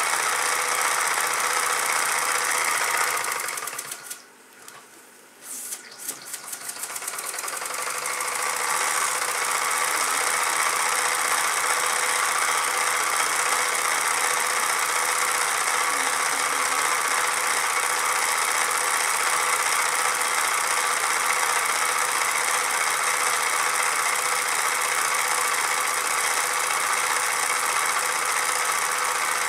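Mamod SP2 toy steam engine with a belt-driven dynamo, running steadily with a fast mechanical whir. About four seconds in the sound drops away for a couple of seconds, then comes back as a run of quickening beats and returns to its steady run.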